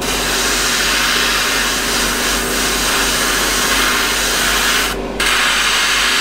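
Airbrush spraying paint in a steady hiss that cuts off briefly about five seconds in as the trigger is let go, with an extractor fan humming beneath.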